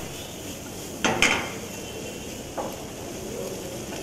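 Chopped onions, chilies and green peas sizzling in a nonstick frying pan over a gas flame as the pan is tossed. A loud clatter comes about a second in and a lighter knock a little before three seconds.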